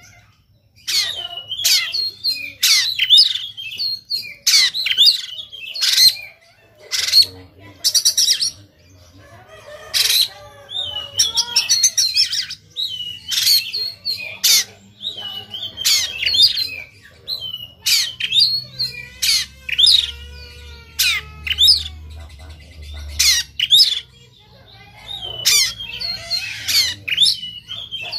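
Oriental magpie-robin singing in its aggressive fighting mood: loud, sharp whistled bursts and harsh calls, the rough "tembakan" that kacer fanciers prize, broken by fast rattling trills and short pauses.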